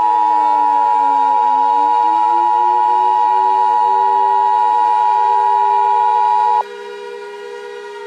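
Emergency Alert System attention signal: the steady two-tone alarm of 853 and 960 Hz, loud and unbroken, cutting off abruptly about six and a half seconds in. Under it a drone with slowly rising and falling pitches carries on after the tone stops.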